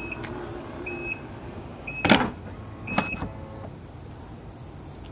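Infiniti FX35 power liftgate powering shut on its replaced actuator struts: a faint motor hum and short high warning beeps about once a second, then a loud thud as the gate closes about two seconds in and a smaller latch click a second later.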